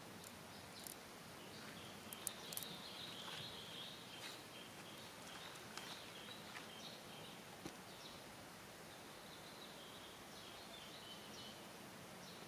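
Faint outdoor ambience with thin, wavering high-pitched chirps on and off, and a few sharp clicks a little over two seconds in.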